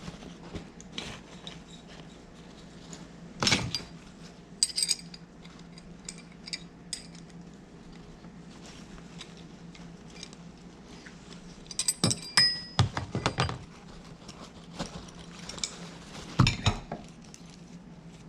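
Metal hand tools and small steel parts from a motorcycle cylinder head clinking and clanking as they are handled and set down on a workbench. There are scattered sharp knocks, the loudest a few seconds in, a cluster about twelve seconds in with a brief metallic ring, and another near the end.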